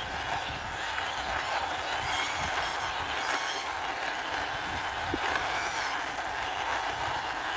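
Small plastic wheels of a toy car rolling over a hard surface as it is pushed along by hand, a steady rolling rattle with gentle swells.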